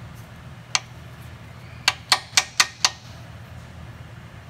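A hand tool and socket click sharply against the LS engine's metal rear main seal cover: one click, then a quick run of five, about four a second, while the newly fitted cover is worked into place.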